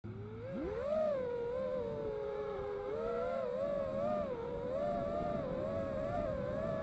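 FPV racing quadcopter's brushless motors (2205, 2350KV) spinning 5045 tri-blade props, heard from on board: a whine that climbs sharply in pitch about half a second in as the quad lifts off, then wavers up and down with the throttle.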